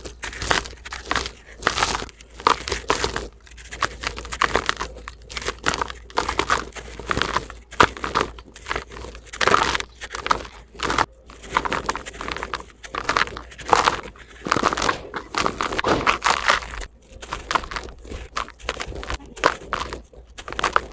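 Dry, gritty sand-cement chunks crumbling and crunching in quick, irregular bursts, with short pauses between handfuls.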